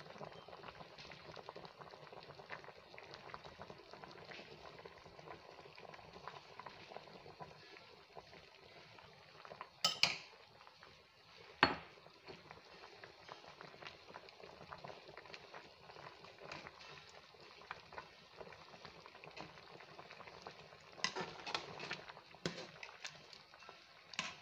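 Catfish pepper soup bubbling in a stainless steel pot, a faint steady crackle of simmering. A metal ladle clinks sharply against the pot twice about ten seconds in, and knocks again a few times near the end.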